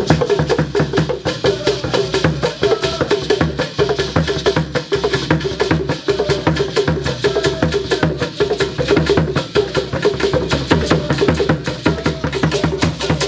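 Traditional Ghanaian drumming: large skin-headed barrel drums played by hand in a fast, steady rhythm of dense strokes, with a gourd rattle shaken along.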